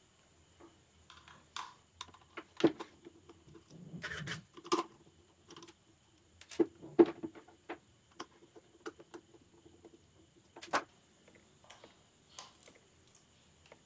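Irregular small clicks, taps and scrapes of a screwdriver working the screws and plastic parts inside a Sony SRS-XB10 Bluetooth speaker as it is taken apart. The sharpest knocks come about 2.5, 7 and 11 seconds in, with a brief rustle of handling around 4 seconds.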